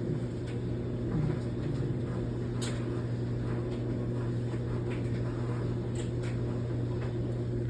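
A steady low electrical hum, with a few faint clicks over it.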